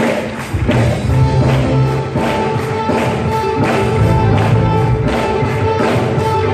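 Live church worship band playing an upbeat song, its drums keeping a steady beat over a strong bass line.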